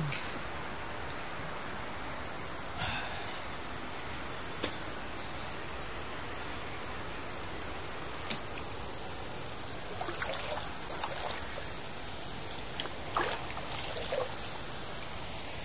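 Water swishing and trickling around a person wading chest-deep through a river while pushing a floating inner tube, with a few sharper splashes. A steady high insect drone runs underneath.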